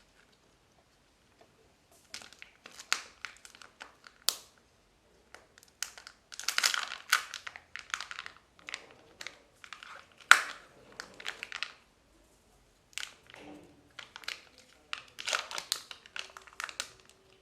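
Kinder Joy egg wrappers crinkling and tearing in irregular bursts as they are opened.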